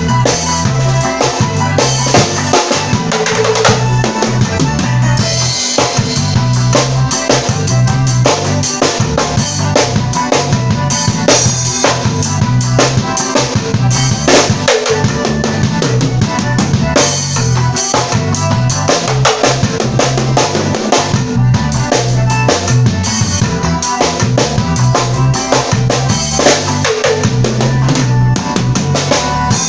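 Drum kit played in a steady, busy groove: bass drum, snare and rimshots, loud and continuous, over a worship song.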